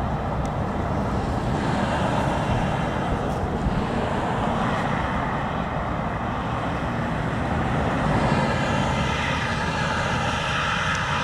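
Steady road noise of traffic passing on a four-lane highway, with one vehicle's tyre whine growing louder toward the end as it passes close by.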